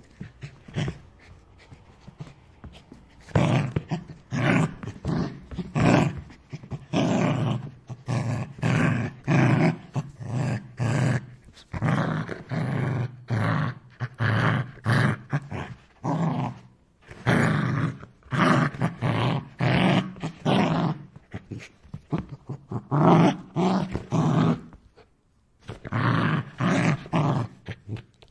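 A dog snarling and growling in a long series of rough, harsh bursts, each about half a second to a second long, with short breaths between them.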